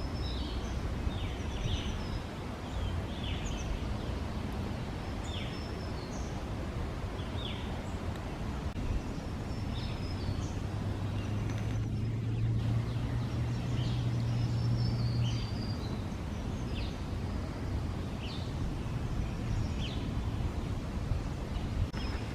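Woodland ambience of several small birds chirping and calling in short scattered notes, over a steady low rumble. A low hum rises out of the rumble from about ten seconds in to about fifteen seconds in.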